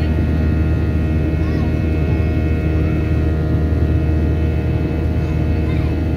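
Boeing 737-800's CFM56-7B turbofan engines heard from inside the cabin during the climb after takeoff: a steady, loud drone with a cluster of high whining fan tones above it.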